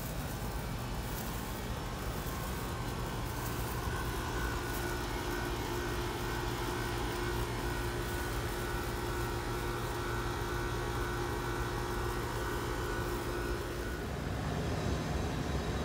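Air-conditioning unit running: a steady mechanical hum with a few held tones. About fourteen seconds in, the tones stop and a deeper rumble takes over.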